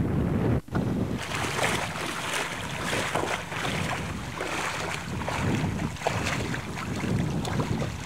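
Wind rumbling on a camcorder microphone, broken by a brief dropout about half a second in at a tape cut; after it, a rougher, fluttering hiss of wind with sea water lapping and splashing at a rocky shore.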